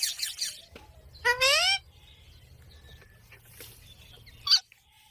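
Parrot vocalizing: a brief noisy burst at the start, a loud pitched call that rises and wavers about a second in, and a short sharp squawk near the end.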